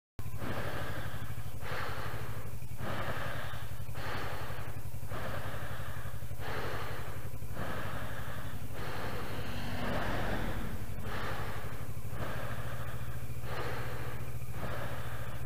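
A rider breathes loudly and rhythmically into the helmet, in and out about once a second. Under it the Kawasaki Versys 650's parallel-twin engine runs with a steady low hum at an even pace.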